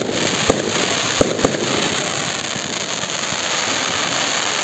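Aerial fireworks going off: several sharp bangs in the first second and a half, then a continuous dense hiss.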